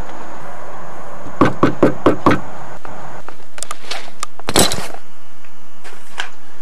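Metal door knocker rapped five times in quick succession on a panelled front door, followed about two seconds later by a few sharper clacks, the loudest about four and a half seconds in.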